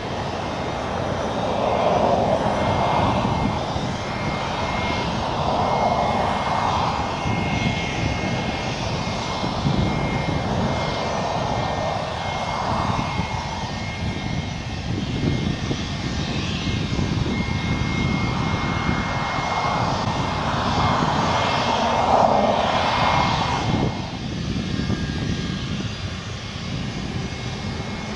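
Light twin-engine propeller airplane landing and rolling out on the runway: a continuous engine drone that swells and fades in loudness several times.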